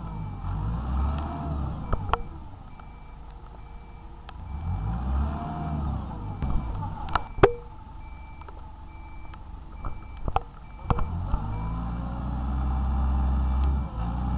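Wheeled excavator's diesel engine revving up and down repeatedly under load as the machine works, with a steady, faint high-pitched beeping alarm. Several sharp metallic knocks, the loudest about halfway through.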